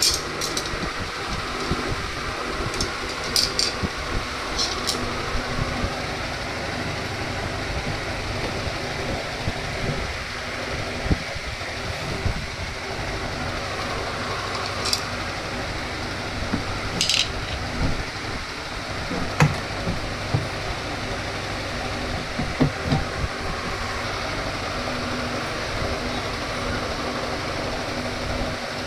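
Washing machine running with a steady mechanical drone and a low hum, with irregular knocks and short metallic clinks over it.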